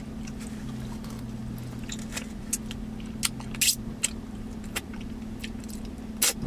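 Chewing oxtail meat eaten by hand, scattered short wet clicks and smacks, the louder ones a little after halfway and near the end. Underneath is a steady low hum from the idling vehicle.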